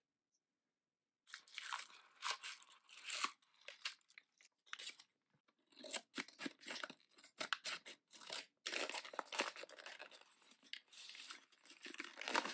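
Plastic toy packaging being opened: a foil blind bag crinkling and crackling as it is handled, cut with scissors from about halfway through and pulled open.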